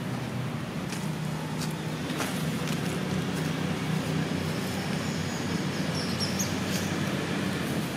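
A steady low engine drone under outdoor background noise, with a few faint ticks and a brief high chirp about six seconds in.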